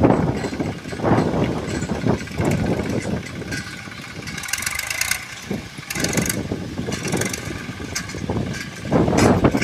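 Massey Ferguson tractor engine running while its rear-mounted rotary digging arm churns the soil, an uneven rumble that surges and fades, with stretches of hiss about four to six seconds in.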